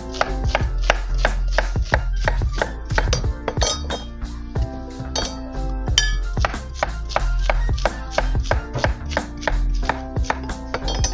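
Kitchen knife chopping plantain on a wooden cutting board, quick regular strikes several a second, with background music underneath.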